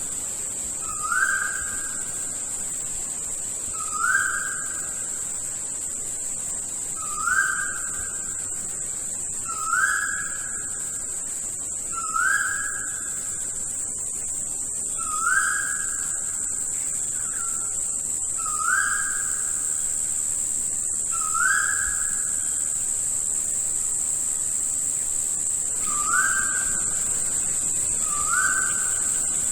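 A rainforest bird giving a short whistled call, rising in pitch and then held briefly, repeated about every two to three seconds, with a longer pause about two-thirds through. A steady high-pitched insect drone runs underneath.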